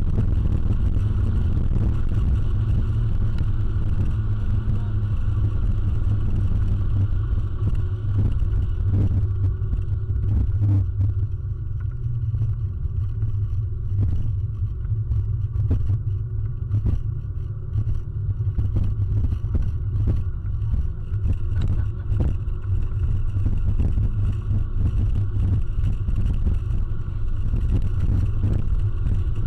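Toyota Corolla XRS's 1.8-litre four-cylinder engine running with road noise, heard from inside the cabin as a steady low rumble.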